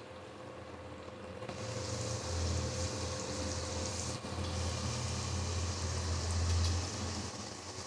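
Chicken curry sizzling in a hot pan: a steady hiss that starts suddenly about a second and a half in, over a low rumble.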